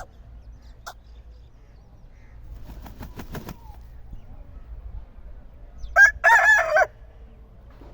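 Aseel rooster crowing once, a short crow of under a second about six seconds in, with a few faint clicks and knocks before it.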